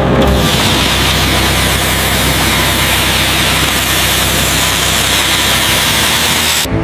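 Large circular saw blade on a forestry machine's hydraulic cutting head running through a log: a loud, steady hiss of sawing over a low engine hum, stopping abruptly near the end.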